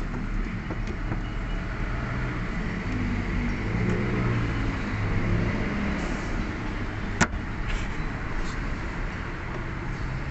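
Steady low mechanical hum, like a motor running, with a single sharp click about seven seconds in.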